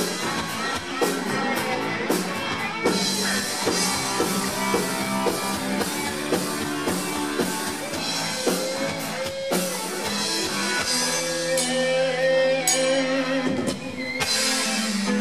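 Rock band playing live, with guitar and drum kit; a long held guitar note rings out from about halfway through.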